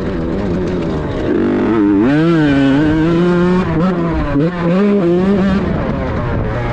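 Kawasaki Ninja grasstrack motorcycle engine revving, its pitch dipping and climbing again several times.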